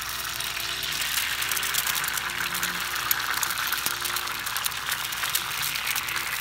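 Raw egg sizzling on a hot, oiled flat-top griddle as it is poured on and starts to fry: a steady hiss full of fine crackles.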